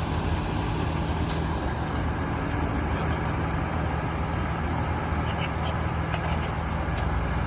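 An engine running steadily at idle, a low even hum with no change in pitch or level.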